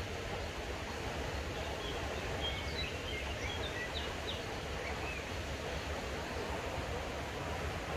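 Woodland ambience: birds chirping in short high notes, mostly between about two and a half and five seconds in, over a steady rushing background noise with a low rumble.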